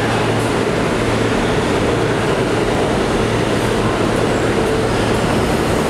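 R160A-1 New York City Subway train standing at the platform with its doors open: a steady low hum from the cars' onboard equipment over an even, noisy rumble.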